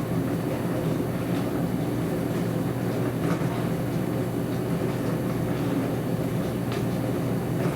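Dishwasher running mid-cycle: a steady low rumble of the wash pump and spraying water, with a few faint light clicks.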